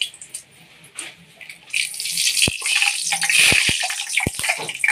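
Whole spices sizzling in hot sesame oil. The sizzle is faint at first, then swells about two seconds in into a loud hiss with several sharp pops and crackles.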